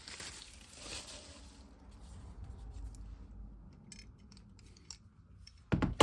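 A stainless steel cable tie tensioning tool being handled: soft rustling at first, then a few light metallic clicks, and a loud knock near the end.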